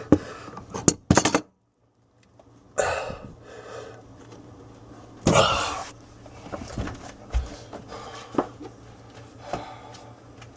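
Hand tools and metal plumbing fittings being handled under a sink: a quick cluster of sharp clinks at the start, then two short rustling bursts and a few scattered knocks.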